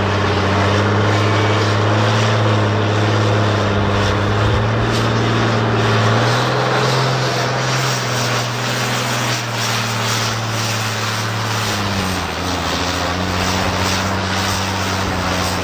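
Modified tractor-pulling tractor's engine running loud at steady high revs. The pitch steps up slightly about six seconds in, then drops to a lower, steady note near the end.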